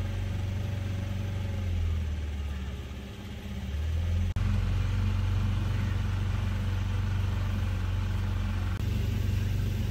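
Motorboat engine running steadily as the boat moves through the water, a low even hum. The sound dips briefly about three seconds in and jumps abruptly about four seconds in and again near the end.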